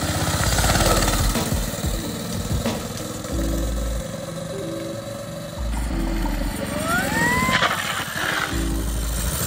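Music with a steady beat over the 212cc Predator single-cylinder engine of a go-kart running. About seven seconds in there is a brief rising-then-falling whine.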